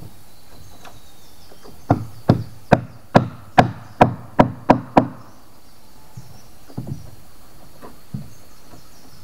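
Wood being struck hard with a tool: a quick run of about nine sharp knocks, roughly three a second, starting about two seconds in, then a few fainter knocks later on.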